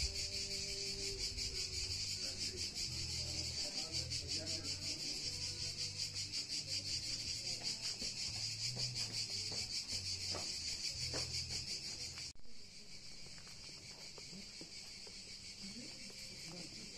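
Insects chirring in a steady, fast-pulsing, high-pitched chorus over a low uneven hum. The whole sound drops abruptly in level about twelve seconds in.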